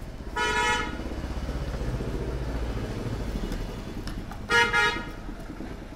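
Two short vehicle horn toots, about four seconds apart, over the low steady rumble of a motor vehicle engine that fades about halfway through.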